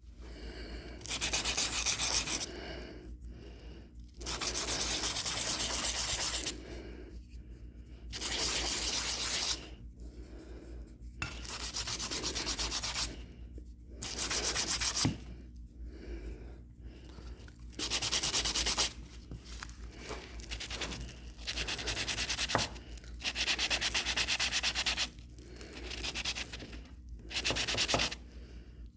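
Hand sanding: a part rubbed back and forth over abrasive paper in about ten strokes of one to two seconds each, with short pauses between, over a faint steady low hum.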